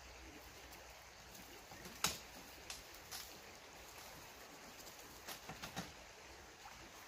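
Faint hiss of a small stream, broken by a few sharp clicks or knocks: a loud one about two seconds in, two more around three seconds, and a quick cluster of four near six seconds.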